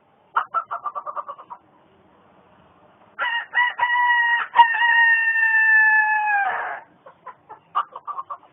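A person imitating a rooster with the voice: a quick run of clucks, then a long cock-a-doodle-doo crow held on one pitch and dropping away at its end, then more clucks.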